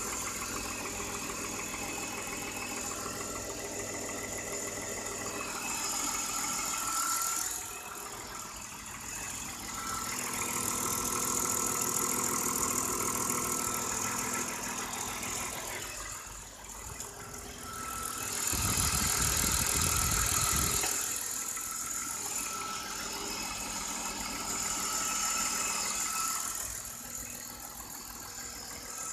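BMW E39's M54 straight-six petrol engine idling after a cold start, with a rattling or knocking noise whose cause the owner does not know. The sound swells and fades, and a low rumble cuts in for about two seconds about two-thirds of the way through.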